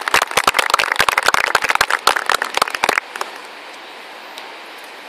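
A seated group applauding, many hands clapping quickly and irregularly. The clapping cuts off abruptly about three seconds in, leaving only a faint steady hiss.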